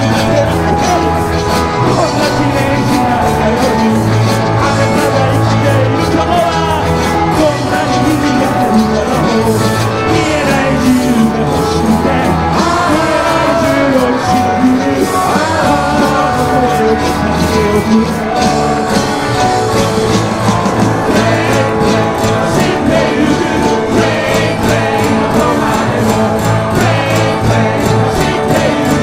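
Live rock band playing loud and steady: electric guitars, bass and drums under a man singing lead into a microphone.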